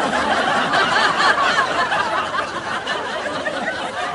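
A group of people laughing, many voices overlapping, slowly fading away.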